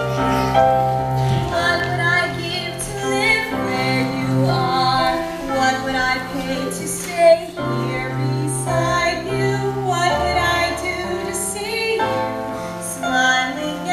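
A female voice singing a show tune over instrumental accompaniment, with sustained bass notes beneath.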